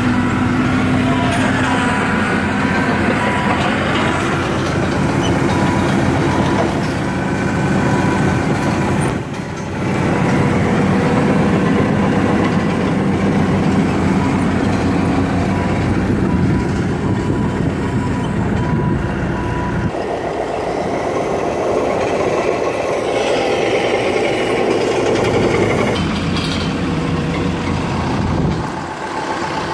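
Excavator's diesel engine running steadily at idle, a continuous heavy hum with a thin steady whine over it; the sound dips briefly about nine seconds in and changes character about twenty seconds in.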